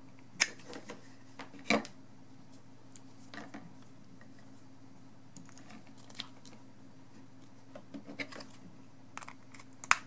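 USB plugs being pulled out of and pushed into connectors on a cable tester board, with handling rattles: a sharp click about half a second in, another near two seconds, and the loudest just at the end as the adapter plug seats in the USB-C port. A faint steady low hum runs underneath.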